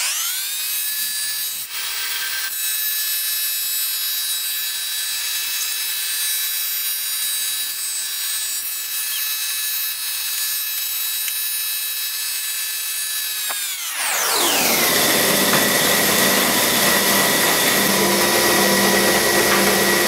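Stationary belt-driven thickness planer planing a rough-sawn birch board: a steady machine whine with the noise of the cutterhead in the wood. About 14 seconds in, the whine slides down in pitch and grows louder, then holds at the lower pitch.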